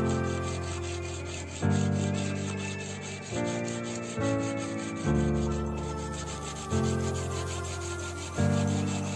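Sandpaper rubbing back and forth by hand along a steel knife blade in quick, even strokes, under background music with held chords that change about every one and a half seconds.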